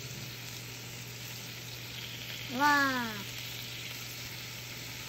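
Thin bacon slices sizzling as they fry in a non-stick pan with no added oil, over a steady low hum. About two and a half seconds in, a short voice sound falling in pitch rises briefly above the sizzle.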